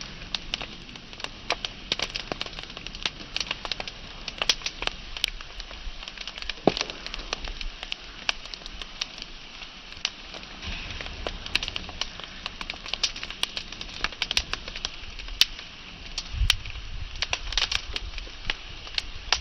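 Wood fire burning, the logs crackling and popping in irregular sharp snaps over a steady hiss.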